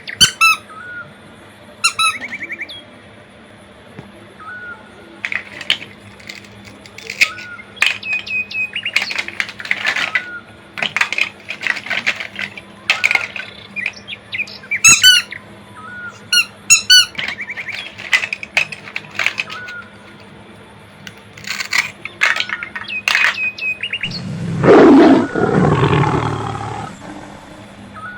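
Short bird-like chirps and squeaks, again and again, then a loud animal roar about 24 seconds in.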